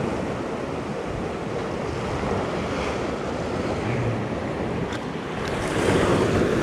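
Sea surf breaking and washing against shore rocks, a steady rush that swells about five and a half seconds in, mixed with wind buffeting the microphone.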